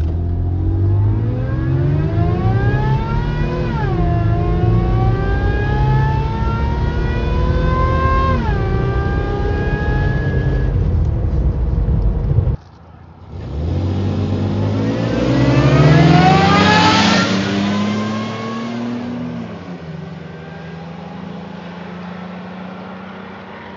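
Toyota FJ Cruiser's 4.0-litre V6 at full-throttle acceleration, heard inside the cabin, the revs climbing and dropping at two automatic upshifts over heavy road and wind rumble. After a sudden cut, FJ Cruisers accelerating hard are heard from the roadside: the engine sound rises to its loudest near the middle, then fades to a lower, steady drone.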